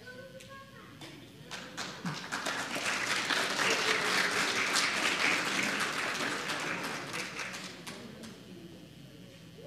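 Audience applauding: the clapping builds up a second or two in, is loudest in the middle and dies away near the end.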